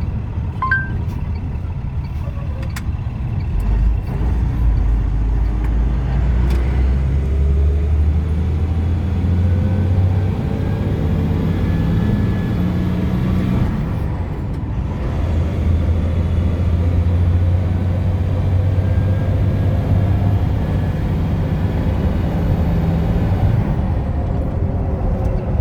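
Engine and road noise of a moving vehicle heard from inside the cab, the engine note rising and falling as it speeds up and eases off.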